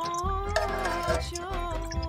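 Background music: a held, gently wavering melody over a steady low beat.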